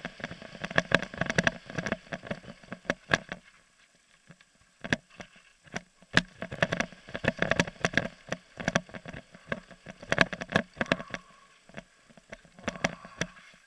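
Mountain bike clattering and rattling down a rough dirt-and-gravel trail, with many sharp knocks from bumps over tyre noise, picked up by a helmet-mounted camera. The clatter eases into two short smoother stretches, about four seconds in and near the end.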